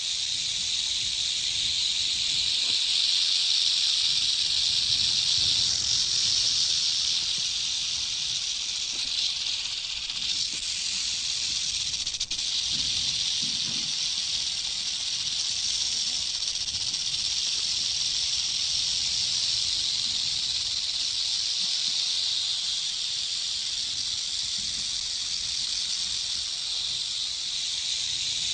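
Snake hissing, a steady high hiss held without pauses.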